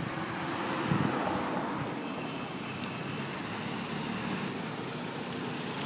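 Steady wind noise buffeting the microphone over a low, even rumble, swelling slightly about a second in.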